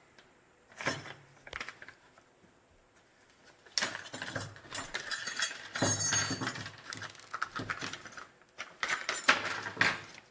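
Small metal tools and parts clinking and rattling together while someone rummages for a wrench: a few single clicks at first, then two longer spells of jangling.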